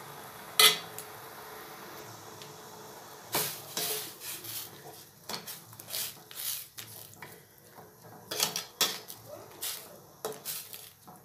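Flat metal spatula stirring broccoli florets blanching in boiling water in a stainless steel bowl, knocking and scraping against the bowl in irregular clinks. There is one sharp knock just after the start, and the clinks come thicker in the second half.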